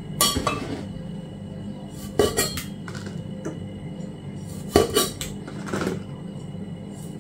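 Sharp clicks and knocks of a kitchen knife and cherry tomatoes against a large mortar and its wooden pestle, as tomatoes are sliced by hand into the mortar: about six short strikes at irregular intervals, some in quick pairs.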